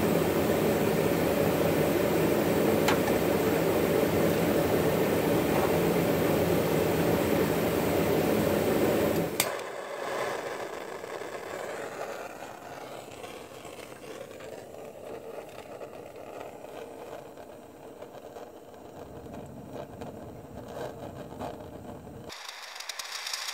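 A steady mechanical hum with a whir, which cuts off abruptly about nine seconds in.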